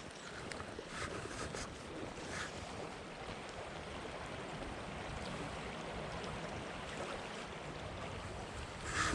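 Steady rushing noise of flowing creek water, with a short louder burst near the end.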